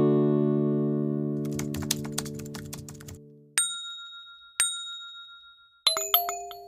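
Music: a plucked chord fades out, then two bell-like dings ring about a second apart, then a quick cluster of chime notes.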